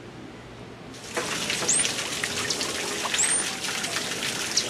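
Running water trickling and splashing, starting about a second in, with a few short, high bird whistles that bend down in pitch heard over it.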